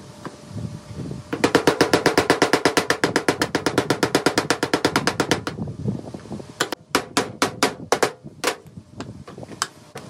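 A fast, even run of knocks, about ten a second, for some four seconds. Then about ten separate claw-hammer strikes on small nails going into the thin wooden roof of a bird feeder kit.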